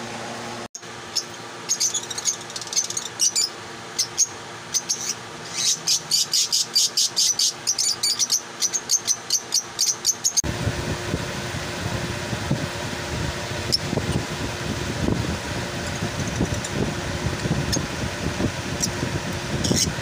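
Lovebirds chirping: shrill, rapid chirps, about four or five a second at the busiest, which stop abruptly about ten seconds in. After that a steady low rumbling noise takes over, with only an occasional chirp.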